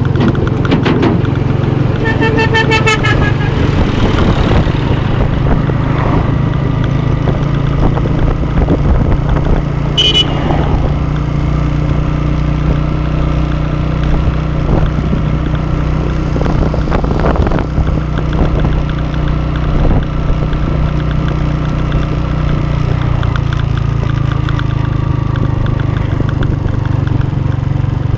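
Small motorcycle engine running steadily while the bike is ridden. A vehicle horn honks for about a second, a couple of seconds in, and a short high beep sounds about ten seconds in.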